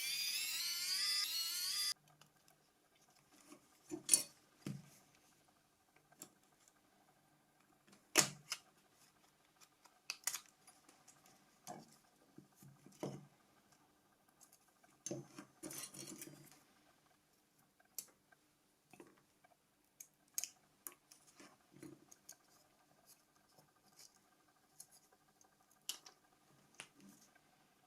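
Scattered small clicks, taps and knocks of plastic and metal parts as a Nokia C5 mobile phone is taken apart by hand, the loudest knocks about four and eight seconds in. For the first two seconds a steady hiss with rising high chirps sounds and then cuts off.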